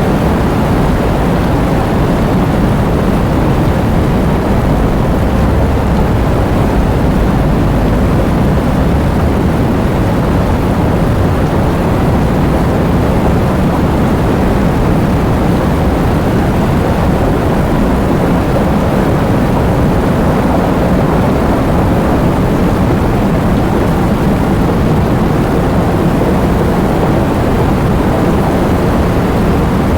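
Heavy rain falling steadily: a dense, even wash of noise with much of its weight in a deep low rumble.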